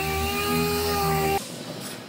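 Small handheld sander running with a steady whine against the steel of a new pickup bedside panel. It cuts off abruptly about one and a half seconds in, leaving quieter scratchy rubbing of a hand scuff pad on the metal.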